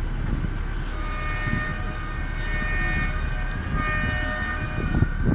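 A vessel's horn sounding a steady multi-tone chord for about four seconds, starting about a second in, with a brief break near the end, over a steady low rumble from the moving boat.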